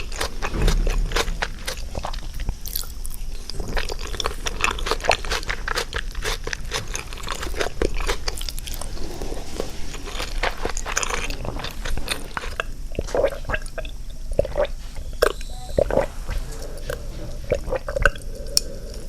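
Close-miked chewing and crunching: a meal of mapo tofu, rice and pickled cucumber being eaten, with rapid small wet clicks that thin out in the last several seconds.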